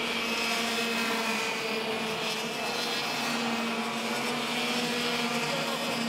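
Racing go-kart engines running at high revs as karts lap the track, a steady high-pitched whine. The lower note fades about a second and a half in and comes back at around three seconds.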